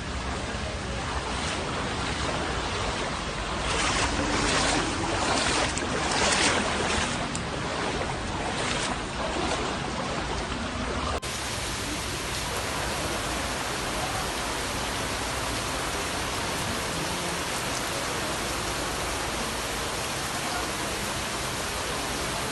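Steady rushing noise of flowing water, swelling louder with gusty surges between about 4 and 9 seconds. About 11 seconds in it cuts abruptly to a second, even rushing water noise.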